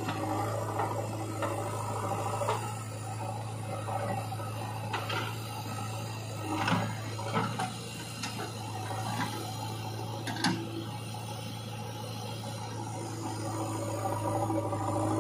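JCB 3DX backhoe loader's diesel engine running with a steady low hum, and a higher hydraulic whine that comes and goes as the backhoe arm works. Scattered knocks and scrapes of the bucket in soil and stones, loudest around the middle.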